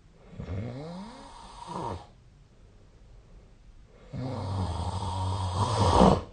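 A sleeping person snoring: two snores about two seconds apart. The first is short with a sliding pitch. The second is longer and louder, a steady low tone that swells near the end and stops sharply.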